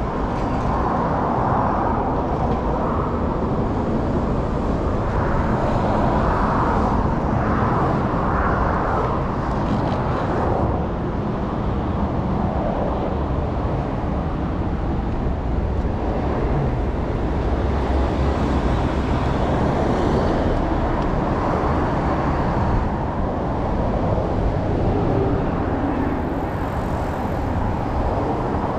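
Steady road traffic noise: cars passing on a street, swelling and fading as they go by.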